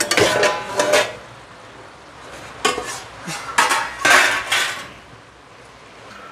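Metal cookware clattering: a steel lid is lifted off a kadai with a clank at the start, then several more short metal clanks and rattles a few seconds later.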